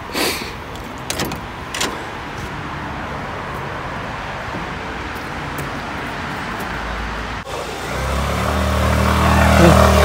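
Steady road traffic noise with a few light knocks in the first two seconds. Then a motor vehicle's engine grows louder over the last couple of seconds as it approaches.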